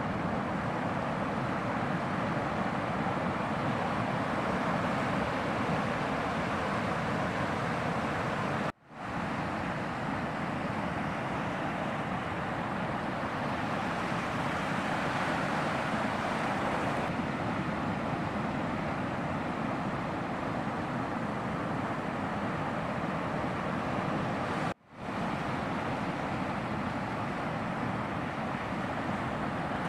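Steady rush of breaking ocean surf with wind on the microphone. The sound drops out briefly twice, about nine seconds in and again near the end.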